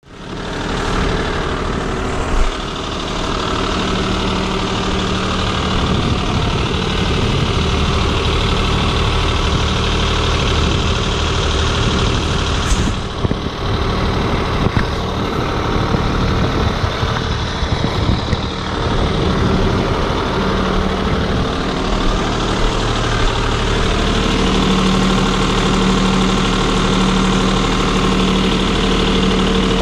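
Toro Groundsmaster 7210 zero-turn mower's diesel engine running steadily, heard from the operator's seat, with a few light knocks and the engine note firming up a little about two-thirds of the way in.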